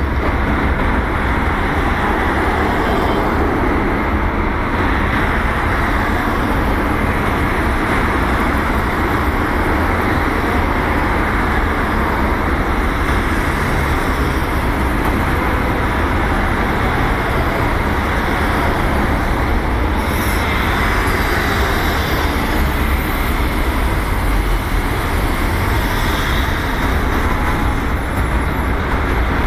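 Steady road traffic noise: cars passing on a busy road, a constant rumble and tyre hiss with no single vehicle standing out.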